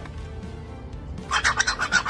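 A parrot making a fast run of repeated pulsed calls, starting about a second in after a quieter moment.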